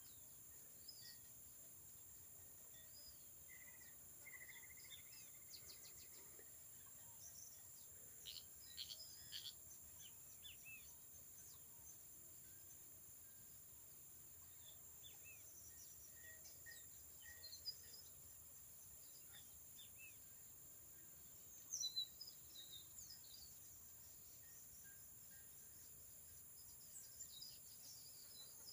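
Faint, steady high-pitched insect drone with scattered small bird chirps. There is a flurry of chirps about eight to ten seconds in and a louder cluster of calls about 22 seconds in.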